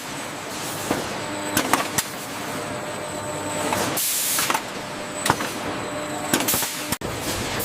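Factory packaging machinery running steadily, with scattered sharp mechanical clacks and a short burst of air hiss about four seconds in.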